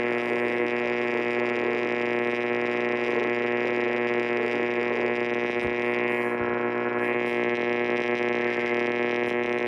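A loud, steady electronic buzz made of many tones sounding together, holding the same pitch and level throughout.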